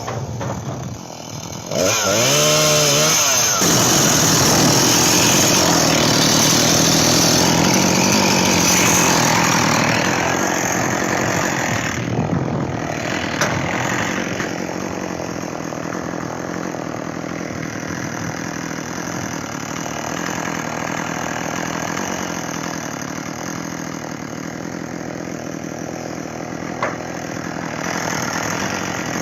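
Chainsaw revved twice in quick bursts, then held at high speed, sawing wood, for about ten seconds. It then drops to a slower, quieter run for the rest.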